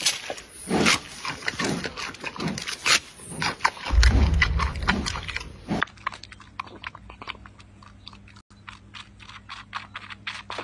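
Giant panda biting and chewing a bamboo stalk with irregular crunches. About six seconds in this gives way to a young kitten suckling milk from a syringe nipple: rapid, regular little clicks, about four a second.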